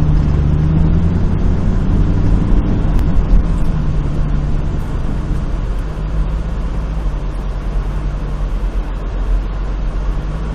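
Lamborghini Countach replica's engine running as the car drives, a steady engine hum that settles slightly lower and quieter about six seconds in.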